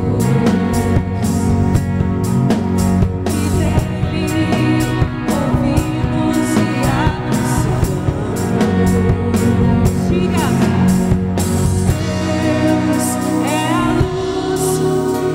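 Live worship band playing a song with drum kit, electric bass, guitars and keyboard, while women sing the lead melody.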